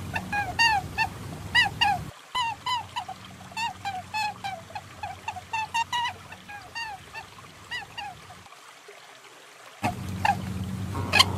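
A rapid series of short bird-like calls, each dipping in pitch, about three a second, from a looped lure recording sold as a perentie calling sound. The background hiss cuts in and out abruptly a couple of times where the recording is spliced.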